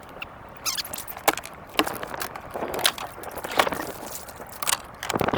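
Irregular knocks, clicks and rustling, about a dozen sharp strikes spread unevenly: handling of a freshly landed bass and tackle on a kayak.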